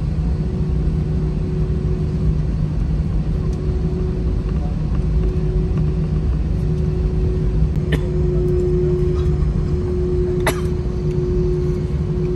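Cabin drone of an Airbus A320 taxiing, its engines at idle: a steady low rumble with a steady hum that grows a little stronger in the second half. Two brief sharp clicks about eight and ten and a half seconds in.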